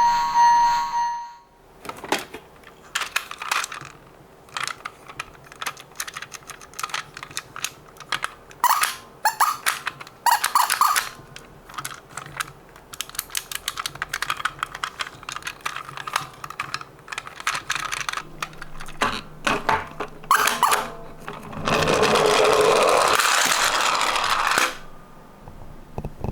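Die-cast Tomica toy cars clicking and clacking against each other and a hard surface as they are handled and set down, in uneven runs of sharp little knocks. Near the end comes a denser rattling noise lasting about three seconds.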